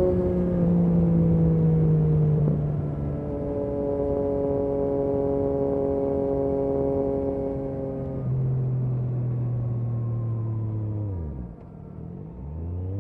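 Yamaha MT-09 SP's three-cylinder engine running through an Akrapovic exhaust under way, holding a steady note that eases lower a few times. Near the end the note falls away steeply and briefly quietens, then picks up again.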